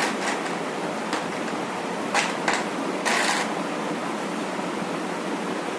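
Chess pieces being set down on a board: a handful of light, irregularly spaced clicks and knocks over a steady background hiss.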